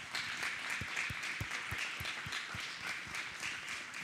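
An audience applauding, a dense steady patter of many hands clapping, with a few low thumps in the first couple of seconds.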